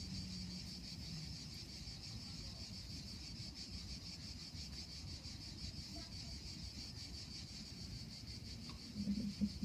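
Insects chirping in a steady, high-pitched, finely pulsing chorus over a low background rumble, with a short louder low-pitched sound near the end.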